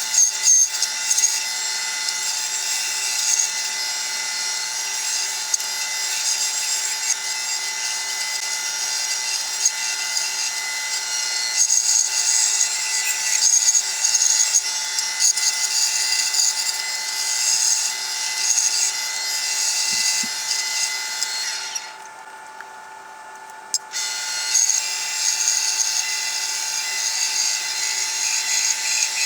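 Bandsaw running steadily with a constant hum while its blade cuts through wood, giving a continuous hissing rasp. The cutting noise stops for about two seconds near the end and then resumes.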